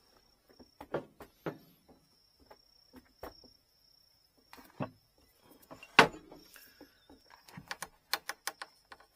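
Scattered small clicks and knocks of tools and a bamboo rod section being handled on a workbench, with one sharper, louder knock about six seconds in.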